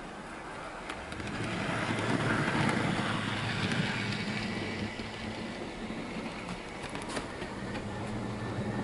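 Heljan OO gauge Class 14 model diesel locomotive running light around the layout: a quiet motor hum and the rattle of wheels on rail. It swells as the loco passes at about two to four seconds in, then eases off.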